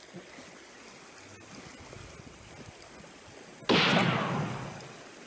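Faint wind and sea noise, then about three and a half seconds in a sudden loud editing sound effect that falls in pitch and fades over about a second and a half, marking a fish strike.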